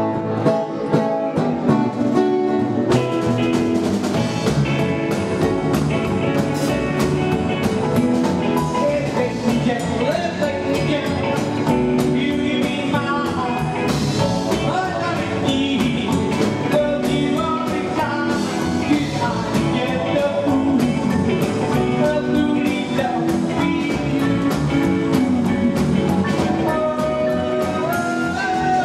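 Live rockabilly band playing: a male singer over electric and acoustic guitars, upright double bass and drum kit, with a steady beat.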